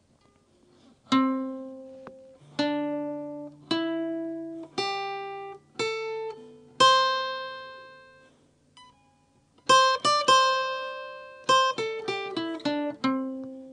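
Hollow-body archtop guitar playing a scale one note at a time along the fourth string: six picked notes about a second apart step upward, the last one left ringing. About ten seconds in comes a quicker run of notes back down the scale, ending on a held low note.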